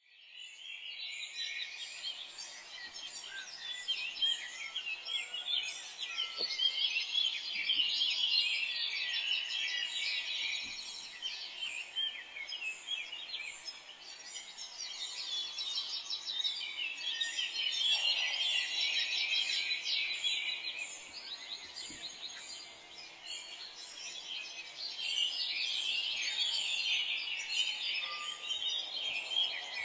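Many small birds chirping and twittering in a dense, continuous chorus that swells and fades.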